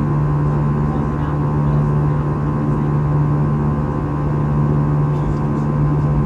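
Steady airliner cabin drone of engine and airflow noise from a passenger seat, with a strong low hum and fainter steady tones over an even rush.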